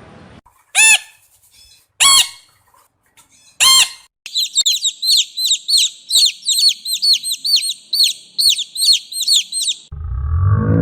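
Bird calls: three loud, short calls, then a fast run of high, repeated chirps, about four a second. A different, lower sound cuts in near the end.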